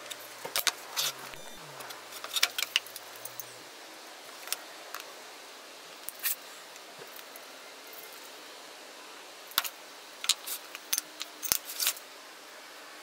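Hand tools and small maple pieces handled on a plywood workbench: scattered light clicks, taps and knocks of metal and wood, some in quick clusters.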